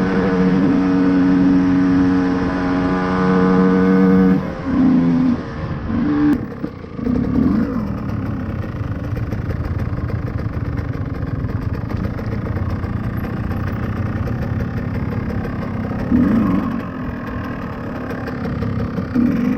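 KTM EXC 125 two-stroke enduro engine with a Scalvini pipe, held at steady high revs for about four seconds, then blipped a few times with the pitch jumping and dropping. After that it runs at low revs with a rougher sound, and the throttle is blipped briefly twice near the end. A single sharp click about six seconds in.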